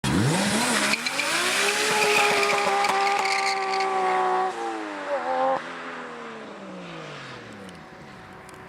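Car engine revving up and holding at high revs for a few seconds, then wavering and winding down, its pitch sliding slowly lower as it fades.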